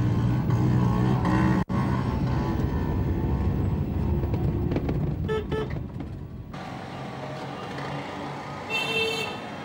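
Road traffic heard from inside a moving car: a steady low engine and road rumble with a vehicle horn tooting briefly about five seconds in. Partway through, the sound changes abruptly to quieter street ambience, with another horn toot near the end.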